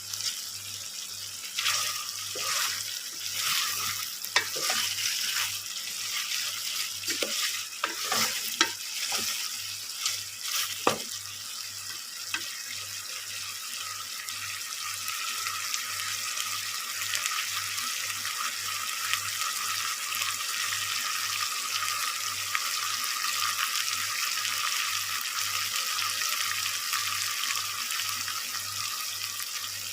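Chicken feet frying in a pan, a steady sizzle, with a utensil stirring and scraping against the pan in short strokes during roughly the first eleven seconds.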